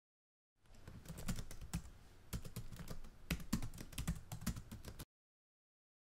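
Keyboard typing sound effect: a run of irregular, quick key clicks, some harder than others. It cuts off suddenly.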